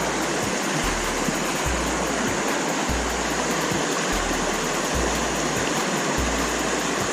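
Rushing creek water, a dense steady roar, with a background music track's deep bass beat pulsing about once a second beneath it.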